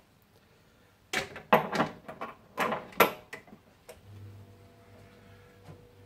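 A run of sharp plastic and metal clacks and knocks as the quick disconnect and beer line fittings are handled and pushed onto the fermenter's post. About four seconds in, a low steady fridge hum sets in.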